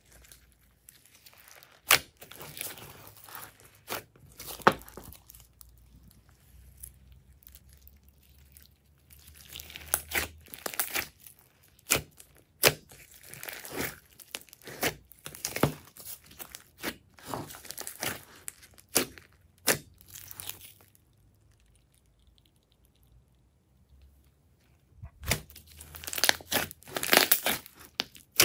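Hands squishing and kneading glossy slime with foam beads mixed in: irregular wet pops, clicks and crackles as the slime is stretched, folded and pressed, with a pause of a few seconds near the end.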